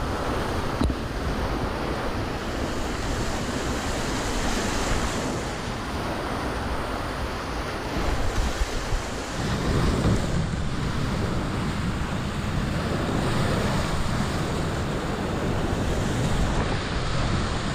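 Whitewater rapids rushing and churning around a kayak, close to the microphone, with wind noise buffeting the mic. The low rumble of the water grows heavier about halfway through.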